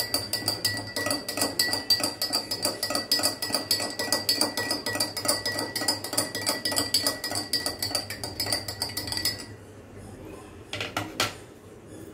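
Steel spoon stirring lemon juice in a glass tumbler, clinking rapidly and evenly against the glass, which rings. The stirring stops about nine and a half seconds in, followed by a couple of light knocks.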